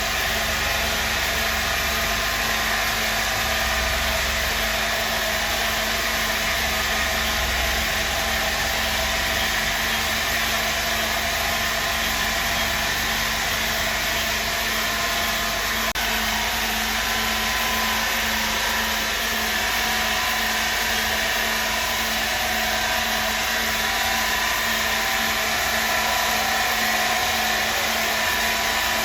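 A machine running steadily: a constant mechanical drone with a steady low hum and a hiss, holding the same level throughout.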